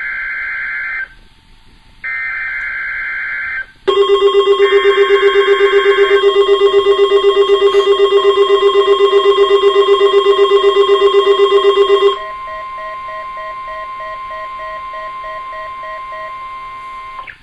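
NOAA Weather Radio emergency alert test signal. Buzzy SAME digital header data bursts repeat with short gaps. Then a loud alarm pulsing about nine times a second sounds for about eight seconds over the steady 1050 Hz weather radio warning alarm tone. The tone carries on alone for about five seconds after the pulsing stops.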